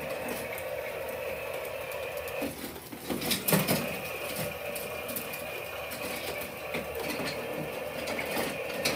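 Battery-powered toy train's small electric motor running with a steady whine as the locomotive pulls its cars around the plastic track. The whine drops out briefly about two and a half seconds in, and a short clatter follows about a second later.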